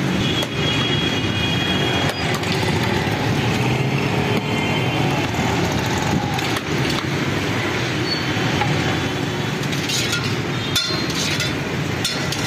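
Steady roadside traffic noise from motorcycles and cars, with a few sharp clicks near the end.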